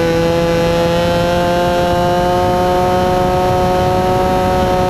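RC plane's motor and propeller heard from the onboard camera, a steady buzzing drone at full throttle whose pitch creeps up slightly, over a low rush of wind on the microphone.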